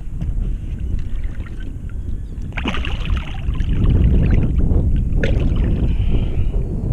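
Wind rumbling on the microphone, with water splashing and sloshing as a redfish held on a lip grip thrashes in the water beside a kayak, two sharper splashes standing out.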